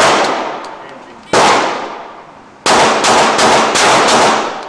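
Springfield XD 9 mm pistol firing: a shot, another about a second and a half later, then a quick string of about six shots. Each report rings on in the reverberation of an indoor range.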